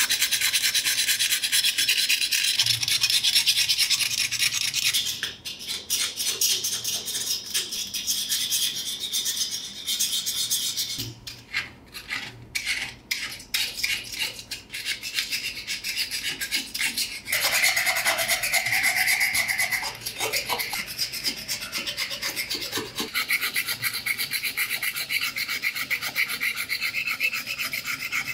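A flat steel scraper blade scraping thick rust off the iron handle of old pincers in quick repeated strokes, a harsh, gritty rasp with short pauses. Just past the middle the scraping turns to a higher, squeakier note for a couple of seconds.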